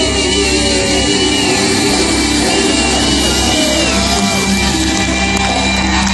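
Live band music with singing: a rock band joined by a violin section, playing over a steady bass line.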